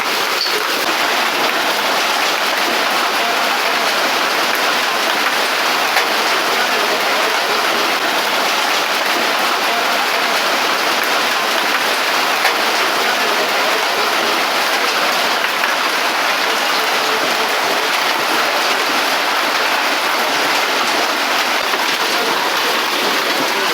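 Steady, loud rushing of water, an even unbroken hiss without distinct drops or strikes, from heavy storm rain or fast-flowing water.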